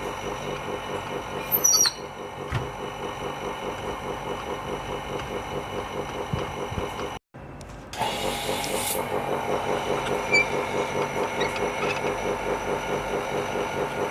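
Small vacuum pump motor on a screen-repair machine running steadily with a fast, even pulsing. It cuts out briefly about seven seconds in, and there are a couple of faint high squeaks.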